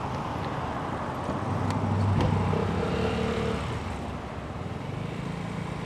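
Husqvarna Svartpilen 401's single-cylinder engine running at low road speed with wind noise, louder about two seconds in and easing off after.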